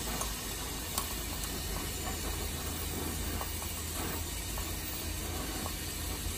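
Glassblower's bench torch burning with a steady sizzling hiss as a glass rod is heated in its flame, with a light tick about a second in.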